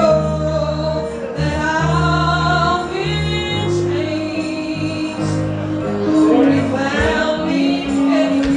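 Gospel song sung by voices over instrumental accompaniment, with held bass notes that change about once a second.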